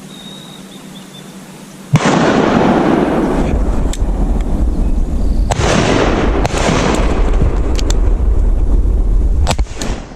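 Wind buffeting the microphone: a loud, rushing rumble that cuts in abruptly about two seconds in and falls away near the end, with a few sharp clicks through it.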